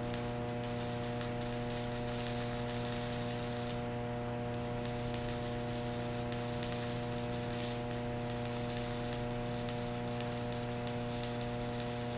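Stick-welding arc from a small IGBT inverter welder burning a J422 electrode at about 61 amps: a continuous crackle and popping rather than a smooth sizzle, over a steady electrical hum. The arc drops out briefly about four seconds in, then strikes again.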